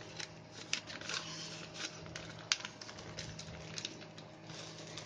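Cardboard and paper packaging being handled: scattered light clicks, taps and crinkles.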